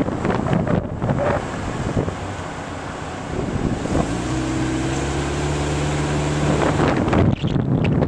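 Wind buffeting the microphone from a moving vehicle, mixed with the vehicle's road noise. From about halfway through, a steady low mechanical hum joins in for roughly three seconds, then fades as the buffeting picks up again.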